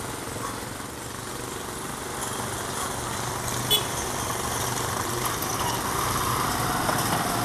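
Diesel-electric locomotive engine running with a steady low hum, slowly getting louder as the locomotive draws nearer. A short sharp click about halfway through.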